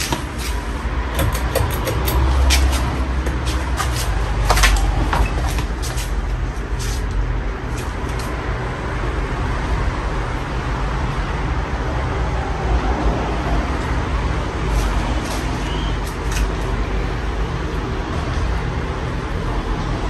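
Casablanca Four Seasons III ceiling fan running steadily: a low motor hum with the rush of moving air, and scattered clicks, most of them in the first eight seconds.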